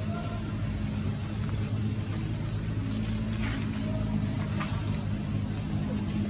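Steady low hum of an engine running, with a few faint short squeaks over it.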